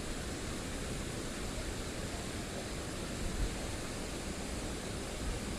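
Steady rushing noise of a large waterfall's falling water, even and unbroken.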